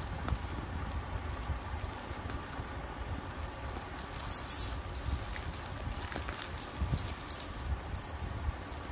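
Scissors snipping through a plastic courier mailer, the polythene crinkling with many small irregular clicks. One sharper, louder crackle comes about halfway through.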